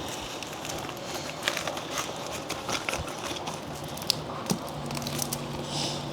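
Crinkling and crackling of a plastic bubble mailer being handled and filled, with scattered light clicks and taps. A faint steady low hum comes in a little past the middle.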